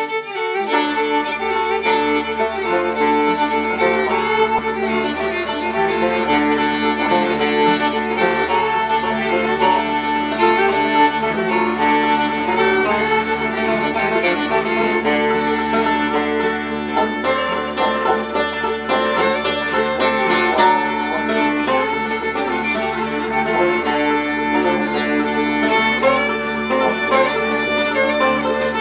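Instrumental bluegrass: banjo picking and fiddle with guitar backing, over a steady low didgeridoo drone that comes in about half a second in.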